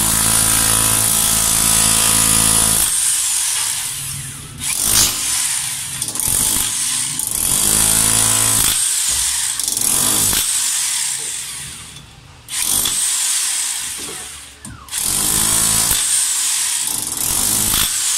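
Ingco electric demolition hammer chiselling concrete around steel rebar. It runs in loud stretches of a few seconds, stopping briefly several times between them.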